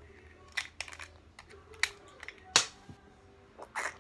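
Hard plastic toy pieces clicking and knocking as they are handled: a handful of sharp, irregular clicks, the loudest knock a little past halfway through.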